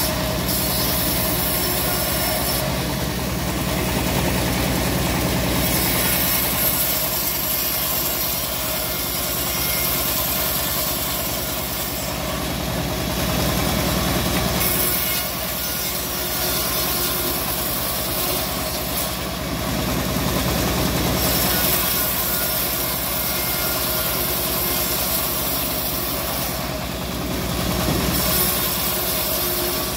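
Homemade bandsaw mill running steadily, its blade cutting teak planks. The loud cutting hiss comes in about five passes of a few seconds each, with short lulls between them while the motor keeps humming.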